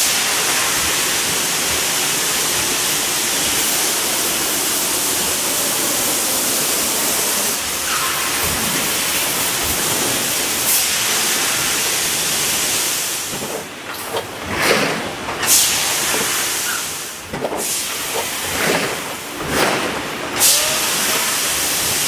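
Plastic-sheet thermoforming machine running with a steady hiss of air and machine noise. In the second half come several louder, short hissing bursts.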